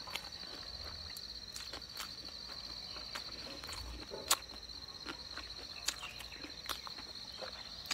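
An insect's steady, high, slightly pulsing trill, with sharp wet clicks of chewing and lip smacks over it; the loudest click comes about four seconds in.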